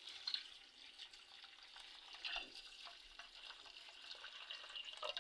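A glass of water being poured into a small saucepan over chopped onion and thyme: a faint, steady splashing pour that stops at the end.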